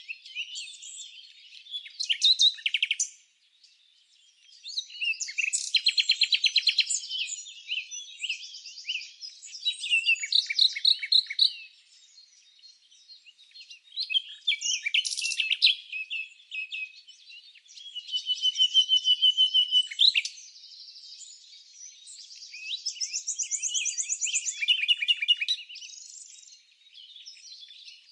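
Small songbirds chirping and singing: a string of short, high-pitched phrases, many of them rapid trills, one after another with brief lulls between.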